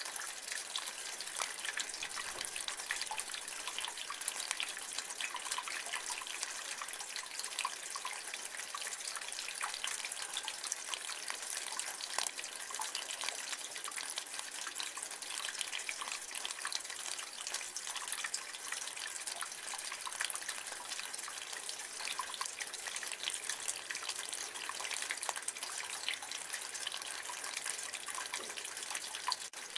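Rain water running and dripping from a gutter: a steady splashing hiss with many small drips.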